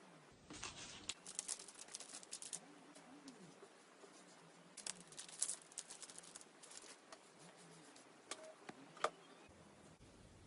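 Slime being worked by hand, giving two runs of quick crackling clicks and pops, then a few single sharp pops near the end.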